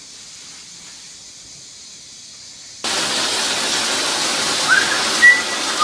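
Shower water starting about three seconds in: a sudden, steady hiss of spray. Near the end, a person whistles a few notes over it.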